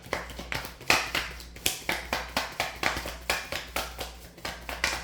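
Tarot cards being shuffled by hand: a quick, uneven run of sharp card slaps and taps, about three to four a second.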